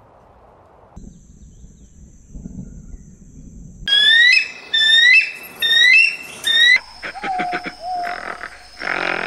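A bird of prey at its nest calling four times in quick succession, loud shrill cries that each rise and then level off. The calls follow a stretch of faint low rumbling, and quieter, lower animal sounds come after them.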